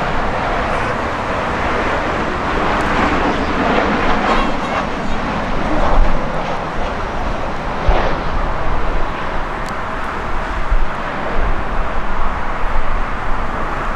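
Boeing 737-800's CFM56 turbofan engines running, a steady loud jet rush, with low thumps of wind on the microphone.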